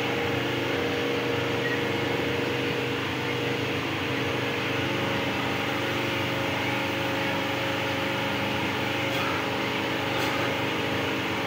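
Steady mechanical hum and whir of a running motor, even and unchanging throughout.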